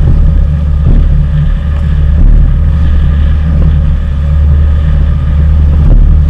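Boat engine running steadily underway: a loud, low drone at a constant pitch.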